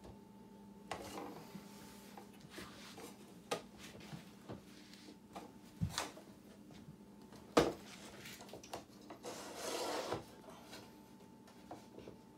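Wooden parts of a Mabef M-22 French box easel being handled and adjusted: scattered knocks and clicks of wood on wood, with sliding and rubbing as the legs and mast are moved. The loudest knock comes about seven and a half seconds in, and a longer stretch of scraping comes near the end.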